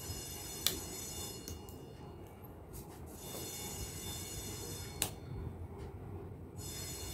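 Cardboard jigsaw puzzle pieces being handled and pressed into place on a hard floor, with two sharp clicks, about half a second in and about five seconds in, and a few lighter ticks, over a steady low rumble of background noise.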